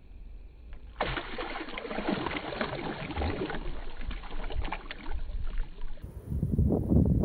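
Bass striking a hand-held shad at the water's surface: water splashing and churning, starting suddenly about a second in and lasting some five seconds. After that comes lower, uneven rumbling.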